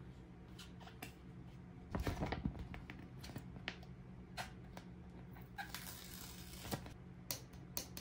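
Small toy parts and packaging handled close up: light clicks and taps, with a louder burst of crinkling about two seconds in and a softer rustling hiss near six seconds.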